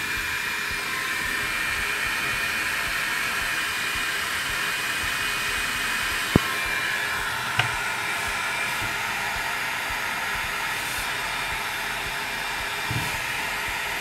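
Newly fitted cooling fan in an Opus BT-C3100 battery charger running steadily, a hiss of moving air with a thin high whine. It spins too loudly, and the owner suspects it is running at full speed. Two light clicks sound about six and seven and a half seconds in.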